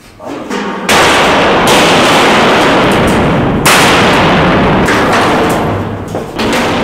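Loud, continuous rattling demolition noise from a power hammer working on the silo's concrete and steel, echoing in the power dome. It drops out briefly at the start and comes back in about a second later.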